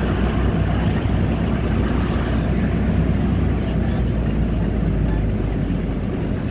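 Steady low engine drone and road noise of a moving vehicle, heard from inside it.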